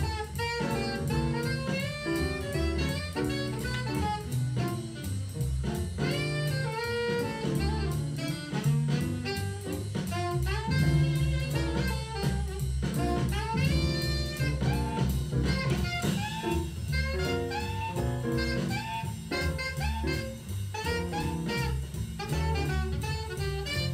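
Instrumental jazz recording playing, with a steady beat under it.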